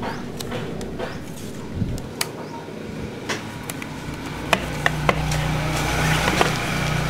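Hard plastic toy car being handled and turned over, with scattered light clicks and taps of plastic. A steady low hum comes in about halfway and stays.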